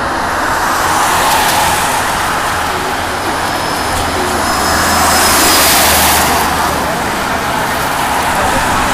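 Boeing 787 Dreamliner's Rolls-Royce Trent 1000 turbofan engines at taxi power, heard from afar as a steady rushing noise. A faint high whine rises out of it around the middle.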